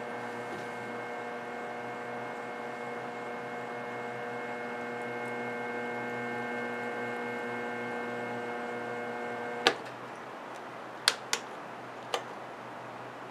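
Milling machine's motor running with a steady hum as it drives a tap into an aluminium tube. About ten seconds in, the motor note cuts off with a sharp click, followed by three more sharp clicks.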